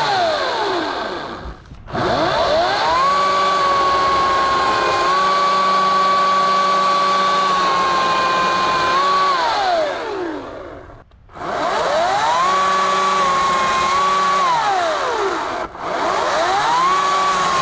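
Ryobi 40-volt 14-inch battery chainsaw's electric motor whining at full speed while cutting a branch, its pitch sagging slightly under load. Three times the trigger is released and the motor winds down to a stop, then spins straight back up.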